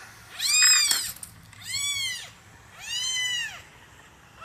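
A domestic cat meowing three times, each meow under a second long and rising then falling in pitch; the first is the loudest.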